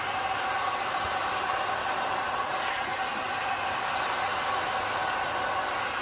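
Handheld heat gun blowing steadily on alcohol ink on a turning tumbler, a rush of air with a steady whine in it.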